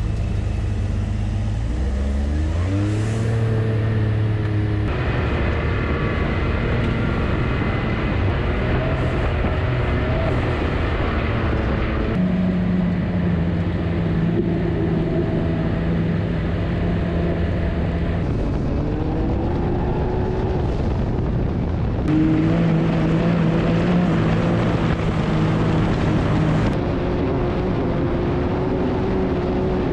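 Side-by-side UTV engine running under way, heard from on board. Its pitch climbs about two seconds in, then steps up and down to new steady levels several times as the throttle changes.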